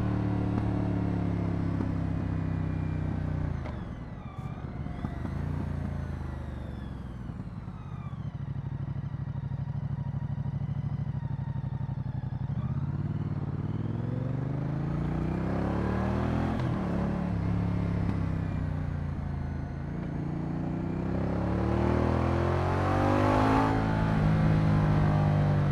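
Moto Guzzi V100 Mandello's transverse V-twin engine on the move. It eases off about four seconds in, then pulls with rising pitch, falls back briefly about two-thirds through, and climbs again to its loudest near the end.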